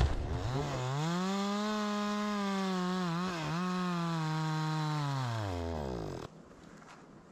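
A power saw cutting wood: its motor spins up, runs at a steady high speed for about four seconds with a brief dip in pitch just past the middle, then winds down and stops.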